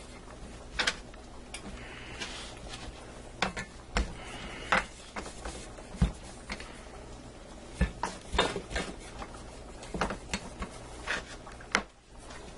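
Wooden rolling pin rolling out pie dough on a floured board: irregular knocks and clicks as the pin is pushed, lifted and set down, with a few deeper thumps about four, six and eight seconds in.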